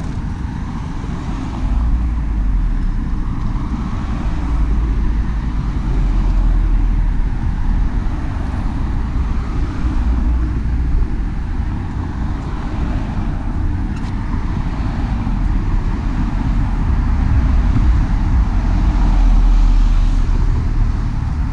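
Steady rumble of road traffic going by, with wind buffeting the microphone.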